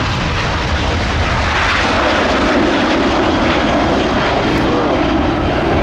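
Boeing 737 jet airliner's twin turbofan engines at takeoff thrust as it lifts off and climbs away: a loud, continuous roar that grows slightly stronger about two seconds in.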